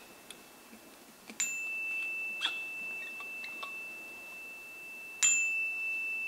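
A high-pitched metal chime for a sound bath, struck twice about four seconds apart, each strike ringing on into one steady high note. There are a few faint clicks between the strikes.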